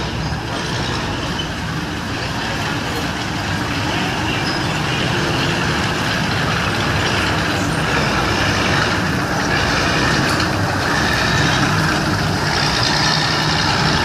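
Hetzer-type tracked tank destroyer driving past, its engine running steadily and growing louder as it comes close.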